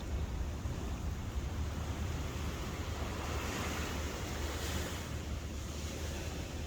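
Sea waves washing in, with one wash building and fading in the middle, over a steady low rumble of wind on the microphone.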